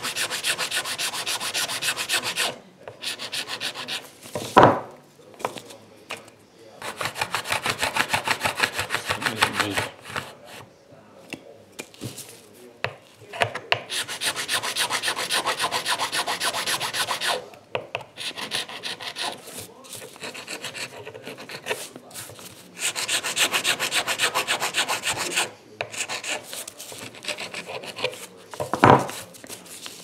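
Hand file scraping back and forth over the edge of a small 3D-printed PLA piece, smoothing it down, in spells of rapid strokes a few seconds long. Two sudden thumps, one about four and a half seconds in and one near the end.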